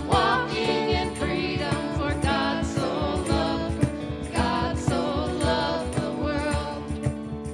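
A small group of voices singing a worship song together, accompanied by grand piano, with a steady beat.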